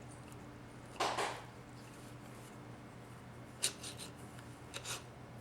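Small metal transmission-pump parts being handled: a short rub about a second in, then a few sharp light clicks as the vanes of a 4L60E pump are fitted into place.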